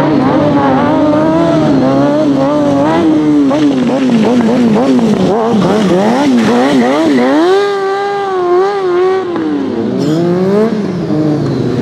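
Stunt sport motorcycle's engine revving up and down in quick throttle blips as the rider balances tricks, then held at high revs for about two seconds around eight seconds in before falling away.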